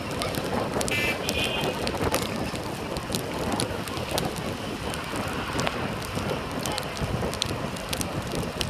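Road and traffic noise from a car driving along a wet street: a steady hiss of tyres and wind buffeting the microphone, with scattered clicks and a short high-pitched tone about a second in.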